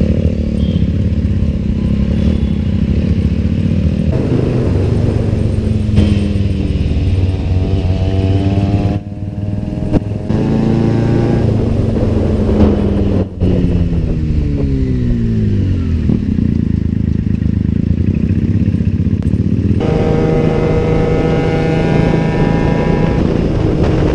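Benelli TNT 300's parallel-twin engine through an aftermarket ixill exhaust, loud and revving. Its pitch climbs through the gears several times as it accelerates and falls as it rolls off, with abrupt jumps between clips.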